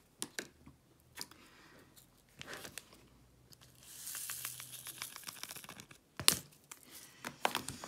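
Quiet handling of diamond-painting tools: scattered small clicks and taps from the drill pen, the plastic drill tray and resin drills, a crinkling rustle lasting about a second and a half about four seconds in, and one sharper click after about six seconds.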